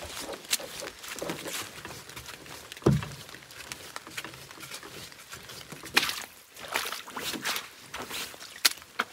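Footsteps in sandals through wet leaves and mud on a waterlogged trail, an uneven series of crunching, splashing steps, with a dull thump about three seconds in.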